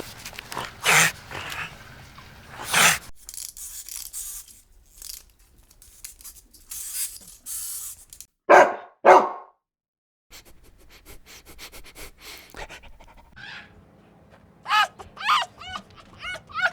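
A dog barking and whimpering, in a few short clips cut together. Two loud calls come a little past halfway, and a quick run of high yips comes near the end.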